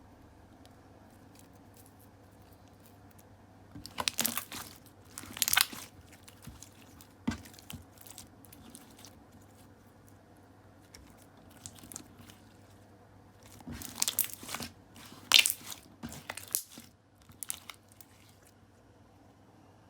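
Clear slime being squeezed and pressed by hand, giving short bursts of crackling, popping clicks, in two clusters with quiet gaps between.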